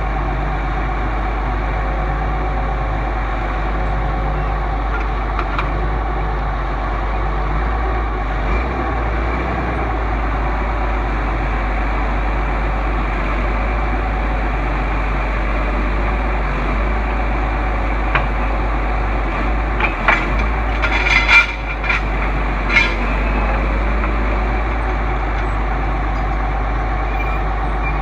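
A heavy vehicle's engine running steadily, with a few short clanks about twenty seconds in.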